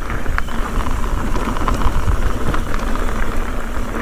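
Mountain bike tyres rolling fast over loose, rocky dirt, with a steady low rumble of wind noise and scattered clicks and rattles of gravel and the bike.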